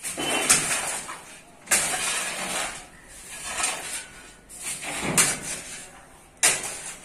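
Shovels scraping into and tossing broken concrete rubble: a run of harsh, grating scrapes about every second and a half.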